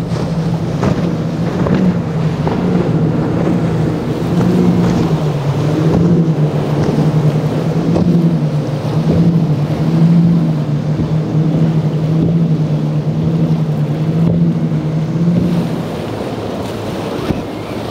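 Outboard engines of powerboats running hard through choppy water: a steady engine drone that wavers a little in pitch, over the wash of spray and wind on the microphone. The drone drops away near the end, leaving water and wind.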